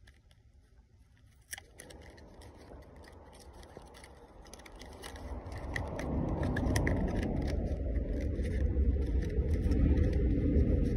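Cardboard box of Fujifilm Provia 100F 35 mm film being handled and opened in the hands: crackles, scrapes and clicks throughout, with a sharp click about 1.5 seconds in. From about halfway a low rumble grows louder and becomes the loudest sound.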